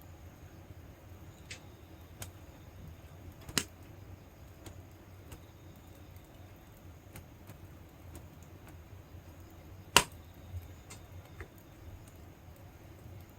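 Wood fire crackling in a fire pit: scattered faint snaps and two sharp, loud pops, one a few seconds in and a louder one about ten seconds in.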